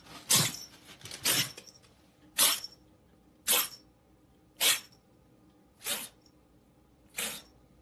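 Kitten sneezing over and over: seven short, sharp sneezes about a second apart, the last two fainter.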